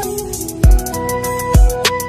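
Background music with a steady beat: two heavy kick-drum hits about a second apart and quick hi-hat ticks under a melody of held notes.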